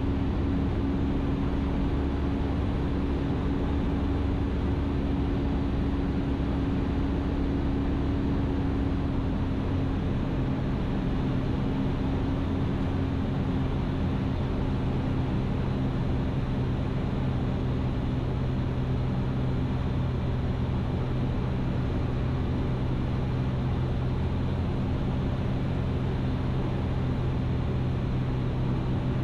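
Ikarus C42 light aircraft's engine and propeller droning steadily, heard inside the cockpit on final approach. About a third of the way in, the note shifts and a lower hum takes over.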